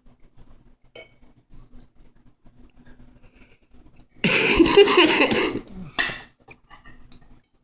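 Kitchen dishes and cutlery clattering: a few light clinks, then a loud clatter about four seconds in lasting about a second and a half, and one more short clatter just after.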